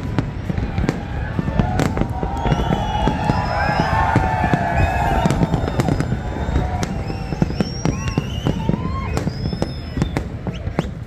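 Fireworks display: aerial shells bursting in a rapid, continuous run of bangs and crackles over a low rumble.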